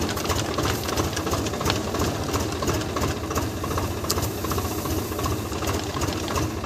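Tractor diesel engine running steadily, a rapid even train of firing pulses.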